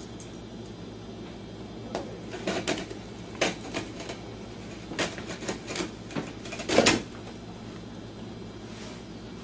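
A small dog tugging at a baguette jammed in a cabinet opening: a run of irregular knocks, clicks and scrapes as the crusty loaf bumps and drags against the wooden frame and floor, lasting about five seconds with the loudest clatter near the end of the run.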